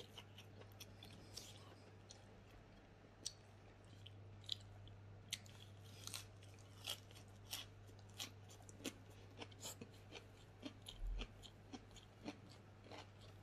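A person chewing close to the microphone, a mouthful of raw leafy greens, with short irregular crunches and clicks over a steady low hum.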